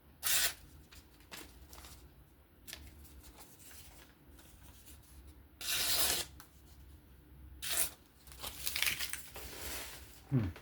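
CJRB Feldspar knife blade slicing through paper in a few separate cuts, one longer stroke about halfway through, with scratchy sounds near the end: an edge-sharpness test on its unsharpened factory S35VN edge.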